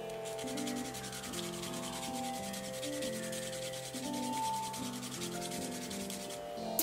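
Nail file rasping quickly back and forth across the edge of a press-on nail to shorten and shape it, in quick, even strokes, with music playing underneath.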